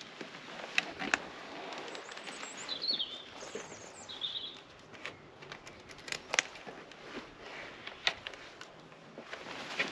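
Scattered light clicks and knocks of a motorcycle helmet being handled and put on, over a faint outdoor background, with a few short bird chirps about three to four seconds in.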